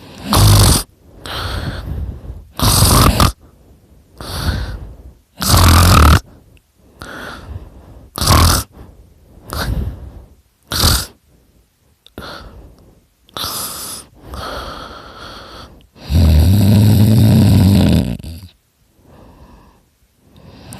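A person snoring very loudly through an open mouth: a string of rough, separate snores about every second or so, uneven in length and strength. Near the end comes one long, deeper snore of about two and a half seconds.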